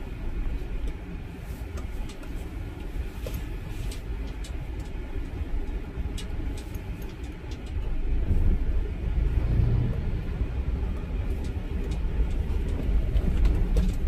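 Low rumble of a car driving slowly along a narrow lane. A motor scooter passes close by about eight seconds in, and the rumble grows louder as it goes past.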